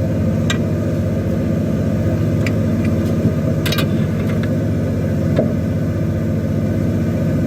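A fishing boat's engine running steadily with an even, fast pulse, with a few faint clicks over it.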